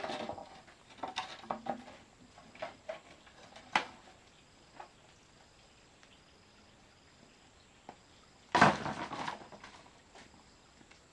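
Scattered light knocks and clinks of things being handled, with a louder clattering burst about eight and a half seconds in. A faint high chirp repeats steadily in the background.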